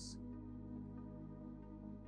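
Soft ambient background music: a held, steady chord of sustained tones.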